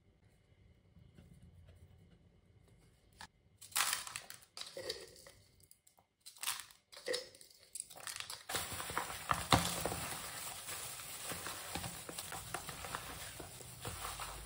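Thin plastic food-prep glove crinkling and rustling as a hand mixes seasoned fish pieces in a plastic bowl, steady from a little past halfway. A few short, sharp handling sounds come before it.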